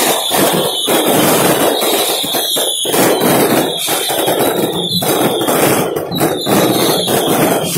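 Dense barrage of fireworks and firecrackers going off at close range: continuous crackling with sharp cracks. A high whistle comes back every second or so, each one falling slightly in pitch.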